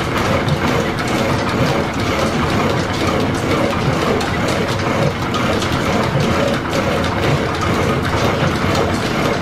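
Steady mechanical clatter of a belt-driven Brown & Sharpe horizontal milling machine running in a line-shaft shop, its gears, pulleys and flat leather belts turning.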